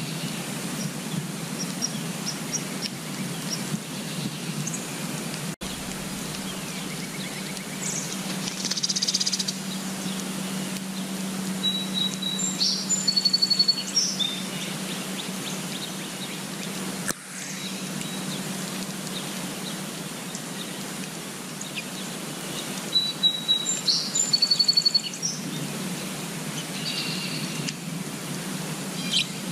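Birds chirping and calling over a steady low background rumble. Short high chirps and quick trills come in clusters, and the same chirp-and-trill phrase is heard twice, about eleven seconds apart.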